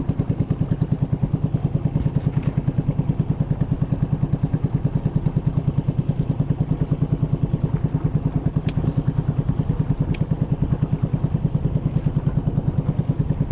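A small boat engine running steadily at slow trolling speed, with a fast, even chugging pulse.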